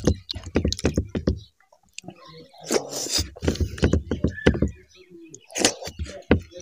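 Close-miked chewing and lip-smacking of a mouthful of rice and pork gravy eaten by hand: a quick run of short, wet mouth clicks that pauses briefly about a second and a half in, then carries on.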